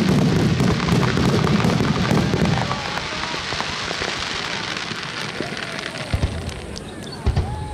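Fireworks starmine salvo: many shells bursting in quick succession, with heavy booms in the first few seconds settling into a steady crackle of falling stars, then two sharp booms near the end.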